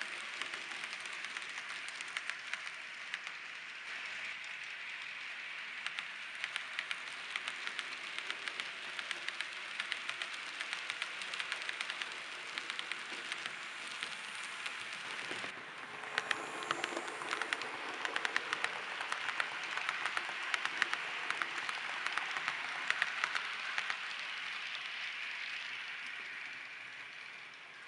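Model train pulled by an M62 diesel locomotive model rolling along model railway track: a steady rolling hiss with a dense, rapid clatter of small wheels over rail joints. The sound drops away briefly about halfway through, then comes back a little louder.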